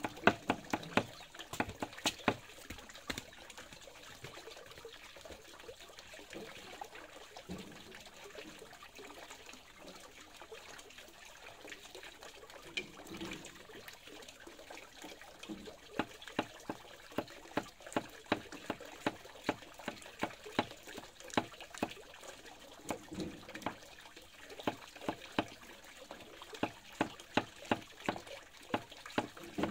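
Water trickling, with irregular sharp knocks and clicks over it, a few near the start and coming about twice a second in the second half.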